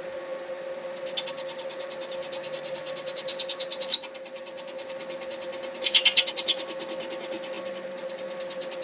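Midi lathe running with a steady hum while a turning tool cuts the spinning acrylic pen blank in short passes, each pass a rapid rattling scrape. The loudest pass is about 3 to 4 seconds in, with another around 6 seconds.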